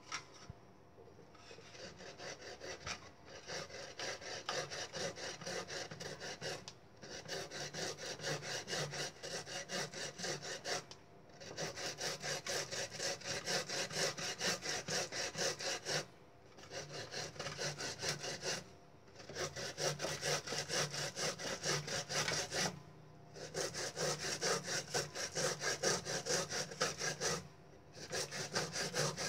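Peeled cassava root grated by hand on a board grater: quick rasping back-and-forth strokes in runs of a few seconds, broken by about six short pauses.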